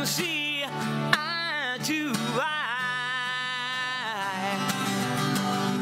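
Twelve-string acoustic guitar strummed under a wordless sung vocal. The voice bends and slides in pitch, then holds one long note that fades out about four seconds in, and the guitar carries on alone.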